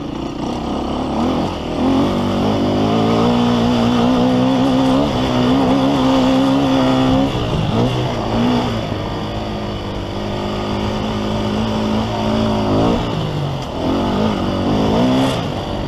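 Motocross bike engine heard on-board at race speed, held at high revs with its pitch dropping sharply twice, about halfway through and again near the end, then revving back up.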